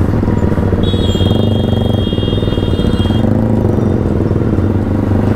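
Motorcycle engines idling and running at low speed in stop-and-go traffic, a steady, pulsing low hum. A high steady tone, like a vehicle horn, sounds for about two seconds starting about a second in.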